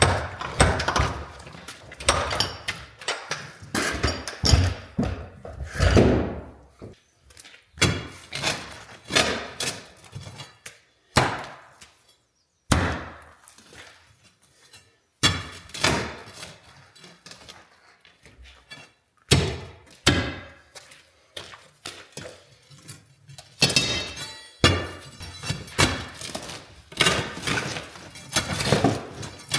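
Irregular series of heavy thuds and knocks, with short breaks between clusters, from work on saw-cut concrete slabs.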